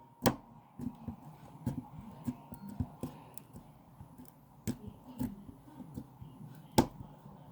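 Sticky Play-Doh slime being squeezed and kneaded by hand, giving irregular wet clicks and pops, with a louder pop just after the start and another near the end.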